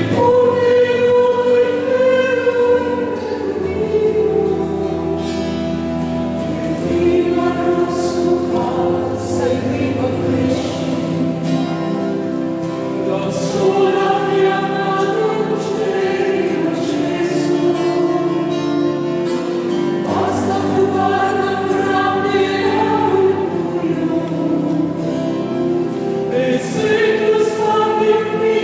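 A choir singing slow sacred music in long held chords that change every few seconds.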